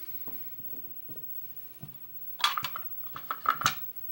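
Small metal objects clicking and clattering as they are handled on a workbench: lock tools and a metal pin tray being picked up and set down. Faint light ticks come first, then two short bursts of sharp clatter about two and a half and three and a half seconds in.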